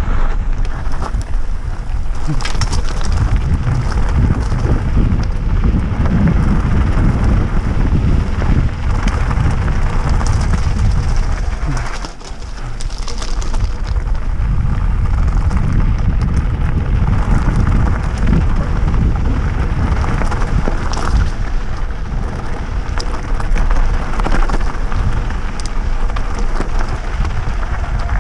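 Mountain bike descending fast on a loose gravel and stone track: tyres crunching and rattling over the stones and the bike clattering, with steady wind buffeting on the microphone. The noise eases briefly about twelve seconds in.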